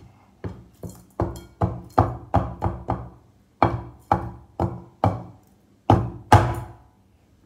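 Wooden cutting board knocked repeatedly against the rim of a stainless steel bowl to shake ground vegetables off it: about fifteen sharp knocks, two or three a second, with a short pause about three seconds in. The last two knocks are the loudest, with a brief metallic ring.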